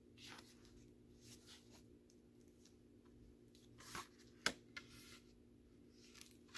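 Quiet handling of a picture book: faint paper rustling with a few soft clicks, over a low steady room hum.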